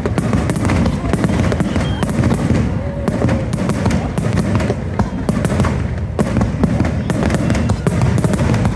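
A dense volley of fireworks: many sharp bangs and crackles a second over a continuous low rumble of bursts.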